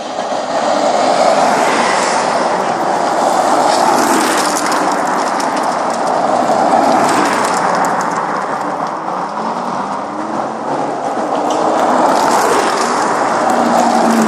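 Cars driving past one after another, engines running over a steady rushing noise that swells and eases, with a few rising revs in the last few seconds.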